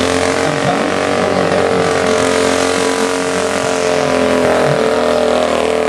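Vintage motorcycle engine running at a steady, even note as the bike rides up the road.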